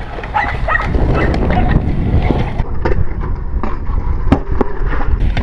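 Stunt scooter's hard wheels rolling and grinding over concrete with a continuous rumble, with scattered clacks and a sharp knock about four seconds in.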